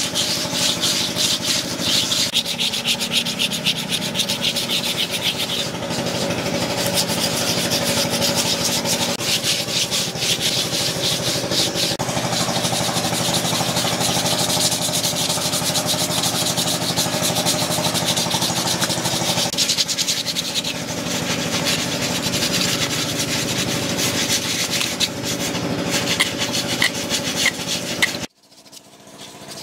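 Sandpaper rubbed by hand in rapid back-and-forth strokes over a carved wooden piece, a steady scratchy hiss. It cuts off abruptly near the end.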